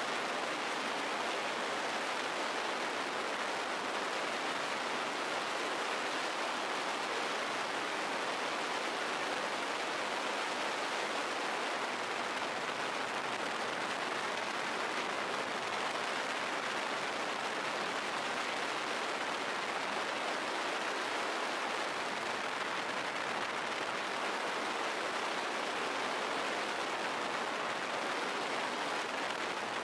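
Longboard wheels rolling at high speed down smooth asphalt: a steady, unbroken rushing noise.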